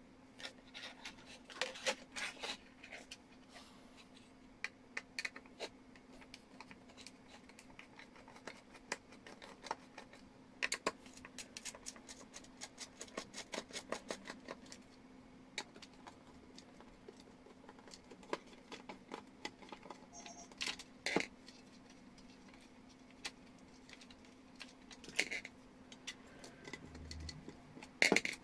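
Small irregular clicks and taps of plastic steam-iron parts and a screwdriver being handled, with a denser run of clicking in the middle as a screw is driven into the iron's plastic housing.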